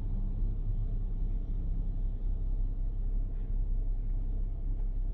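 Kia Sedona minivan's engine idling, a steady low rumble.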